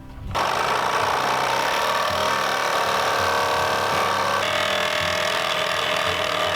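Reciprocating saw with a metal-cutting blade running as it cuts through screws buried in the wooden roof framing. It starts suddenly about half a second in and runs steadily, its pitch shifting partway through. The blade is already dull and struggling to get through.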